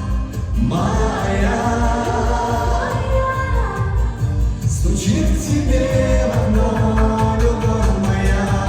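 Caucasian pop song: a male voice singing a melody over a steady bass beat.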